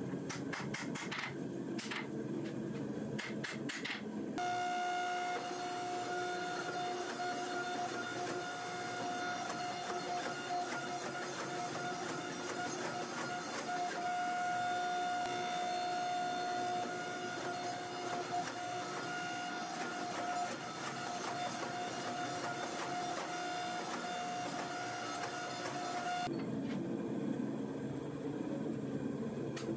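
Hand hammer blows on a hot steel billet on an anvil for about four seconds. Then a hydraulic forging press runs with a steady, even whine for most of the rest, cutting off suddenly near the end, where a low hum and a few more hammer strikes return.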